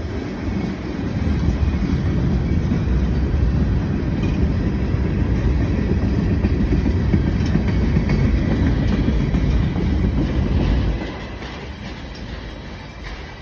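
Norfolk Southern freight train's cars rolling past on the rails with a steady low rumble, dropping off sharply about eleven seconds in and then fading.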